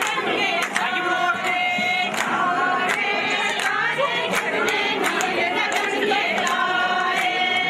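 Group of voices singing a Kashmiri wedding song together, unaccompanied, in long held notes, with a few sharp clicks over it.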